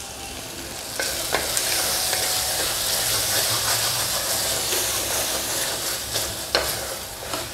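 Onion, tomato and spice masala sizzling in an open pressure cooker as a wooden spatula stirs and scrapes it; it is being sautéed until the raw smell of the chilli powder and turmeric cooks off. The sizzle grows louder about a second in, with a few sharp knocks of the spatula against the pot.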